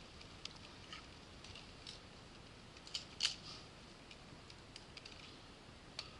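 Faint, scattered metallic clicks of a handgun being loaded and made ready after the make-ready command, with the loudest pair a little past the middle.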